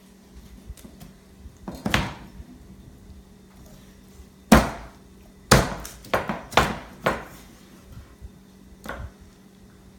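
Scimitar butcher knife striking a wooden cutting board while breaking down a whole chicken: about seven sharp chops, most in a quick run in the middle, over a steady low hum.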